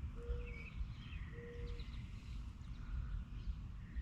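Small birds chirping, with short high notes scattered through, over a steady low rumble.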